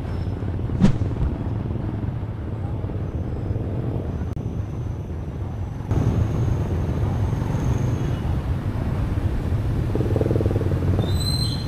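Town street ambience: a steady low rumble of traffic, a little louder from about six seconds in.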